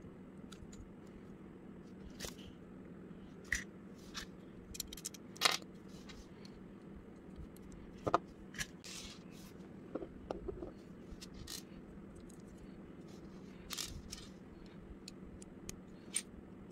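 Plastic Lego bricks clicking and scraping as they are pressed together and fitted by hand: irregular sharp clicks, the loudest about five and eight seconds in, over a faint steady hum.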